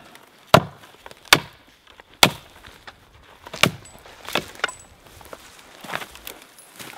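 Axe chopping limbs off a felled tree: a series of sharp blows, about one a second, the first few the loudest and the later ones softer.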